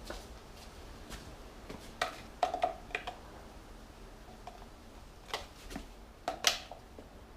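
Scattered sharp clicks and light knocks, a few with a brief ringing tone, in two clusters about two seconds in and again near six seconds: plastic and metal handling sounds of the oil bottle and funnel while the gearbox is being filled.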